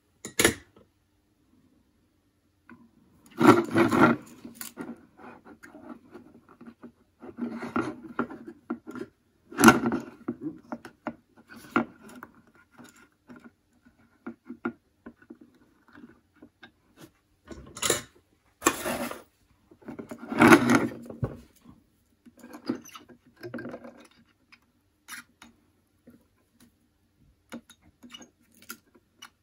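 Handling noise from guitar pots, a capacitor and wire being positioned and soldered on a fibreboard work surface: irregular taps, clicks and scrapes in several short bursts, with quiet gaps between.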